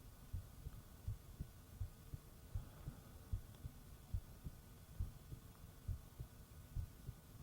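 A human heartbeat heard close up, as with an ear pressed to the chest: soft low lub-dub double thumps, a little under one beat a second, over a faint steady hum.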